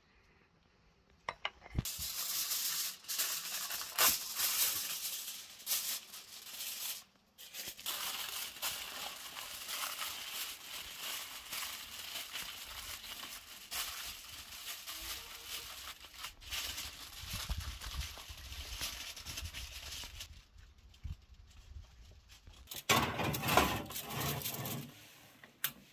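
Aluminium foil crinkling and crackling as it is pressed and crimped by hand over the rim of a glass baking dish. Near the end comes a brief, louder scrape and clatter as the dish goes onto the rack of a countertop oven.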